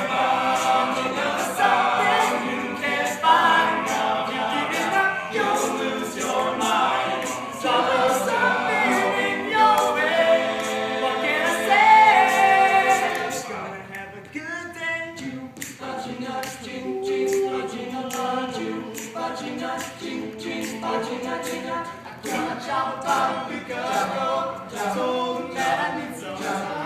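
Male a cappella vocal group singing a wordless harmony passage over a steady beat of sharp percussive clicks. It drops noticeably quieter about halfway through.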